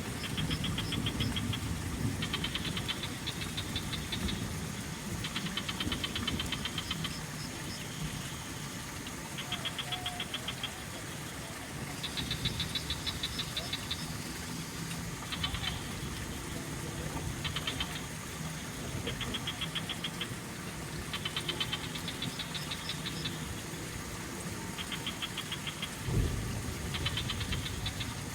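Frogs calling in a chorus: short trains of rapid, high clicking pulses answering one another every second or so, over a lower, rough rattling croak. A faint steady high whine runs underneath.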